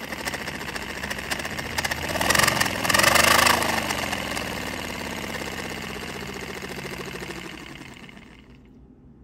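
Paper-and-card V-twin compressed-air model engine running on air, a fast string of exhaust puffs with air hiss. It speeds up to its loudest a couple of seconds in, then slows and dies away shortly before the end.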